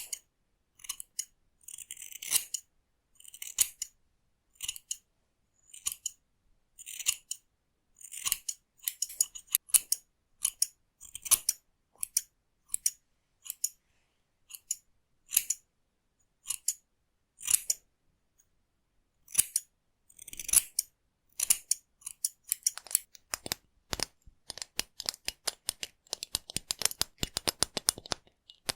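Scissors snipping hair close to the microphone: separate crisp snips about a second apart, quickening in the last several seconds into a fast run of many snips.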